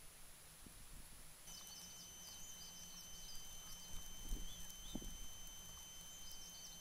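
Small birds chirping faintly over outdoor hiss, with a steady high electronic whine from the trail camera starting about a second and a half in. A couple of soft low thumps come near the middle.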